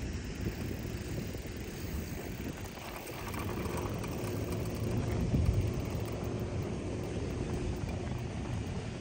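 Low, steady rumble of wind buffeting the microphone over the rush of a fast river current, swelling a little about halfway through.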